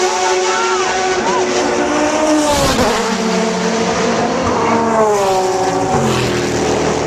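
Sports-prototype and GT race car engines running at high revs on track, their pitch dropping sharply about three seconds in and again near the end.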